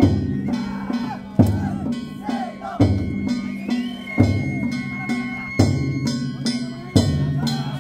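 Danjiri festival music (narimono): a large drum struck heavily about every one and a half seconds, with lighter drum strokes and the ringing clang of hand gongs between the beats.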